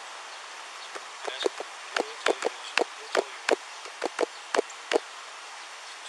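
A quick, uneven run of about fifteen sharp taps or clicks, starting about a second in and stopping about a second before the end, over a steady background hiss.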